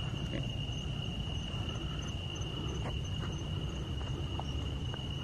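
Crickets trilling steadily on one high note, over a low rumble with a few faint clicks.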